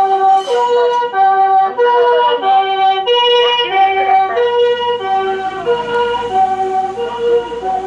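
Japanese ambulance comfort siren sounding its two-tone 'pii-poo' call, a higher and a lower tone alternating about once a second. A low rumble of traffic joins about five seconds in.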